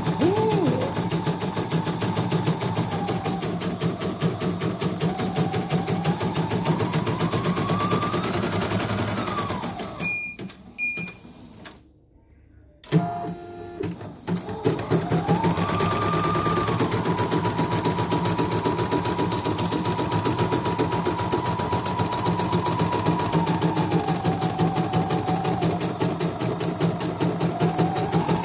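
CNY portable computerised embroidery machine, covers off, stitching a design: rapid needle strokes under a motor whine that rises and falls in pitch as it runs. About ten seconds in it stops with two short beeps, goes quiet for a moment, then starts stitching again.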